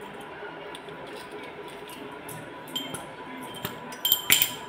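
Small metal items clinking, each clink with a short bright ring: one just under three seconds in, then a quick cluster of several about four seconds in, the loudest, over a low steady background.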